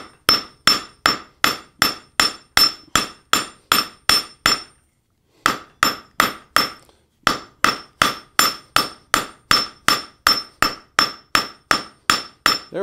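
Rounding hammer blows on a hot iron thumbscrew blank held in tongs over a large fuller on the anvil, spreading the screw's two wings. The blows come at about three a second, each with a short ring, with a brief pause about five seconds in and another near seven.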